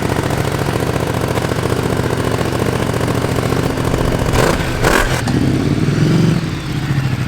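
Ducati Multistrada's V-twin engine idling steadily, revved once about five seconds in, the pitch rising and dropping back to idle.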